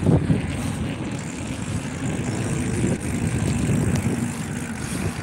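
Wind buffeting a phone microphone while riding a bicycle: a steady low rumble with rapid flutter.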